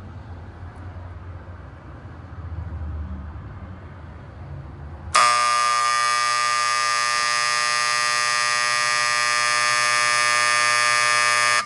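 Wall-mounted 95 dB electric horn, switched on by a programmable bell timer as a scheduled work-break signal, sounding one loud steady buzzing tone for about six seconds and cutting off abruptly. Before it starts there is only a low room hum.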